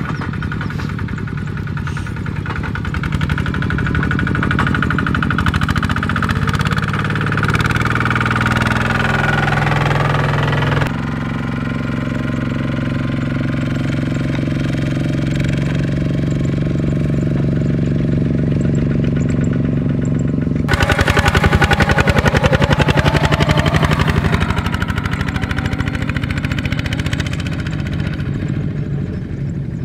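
Single-cylinder diesel engines of two-wheel walking tractors chugging under load as they pull trailers, with a fast, even firing beat. The sound changes abruptly twice, about a third and two-thirds of the way through, as it switches to another tractor, and is loudest just after the second change.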